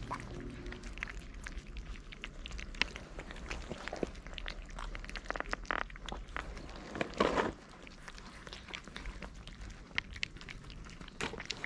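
Several cats eating from one plate, crunching dry kibble and chewing wet food in a run of short crisp clicks and crunches. About seven seconds in comes a louder rustling noise lasting about half a second.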